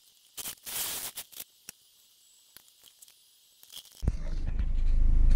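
Faint scattered rustling and clicks. About four seconds in, the Nissan 240SX's swapped KA24DE 2.4-litre four-cylinder engine comes in as a low rumble heard from inside the cabin, growing steadily louder.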